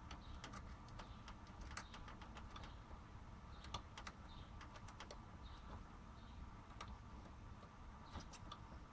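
EVGA Hybrid GTX 980 all-in-one water cooler buzzing faintly and steadily, with scattered faint irregular clicks over it.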